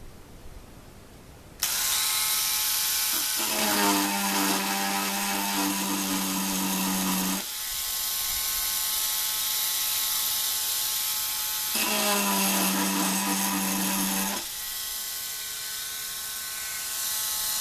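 Small electric power tool starts up about a second and a half in and runs steadily, grinding down a new mandolin nut. Twice, about two seconds and ten seconds in, a lower buzz joins it for several seconds as the tool bears on the work.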